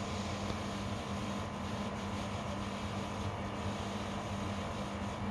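Electrolux WP71-265WT air conditioner running: a steady compressor hum with a second, dissonant tone held over it. The owner takes this dissonance for a fault.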